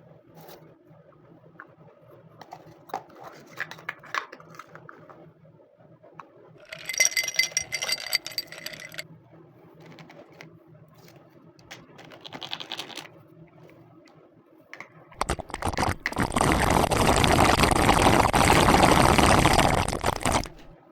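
Small plastic toy-kitchen pieces being handled, with light clinks, scrapes and a couple of short bursts of clatter. Near the end comes a loud, steady rushing noise lasting about five seconds, which then cuts off.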